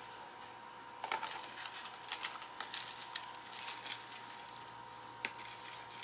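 Faint scattered clicks and light rustles from handling pressed, dried leaves and their cloth and felt layers, over a faint steady tone.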